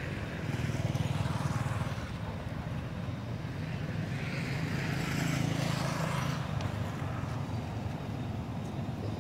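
Low, steady engine hum of motor traffic, swelling twice as vehicles pass.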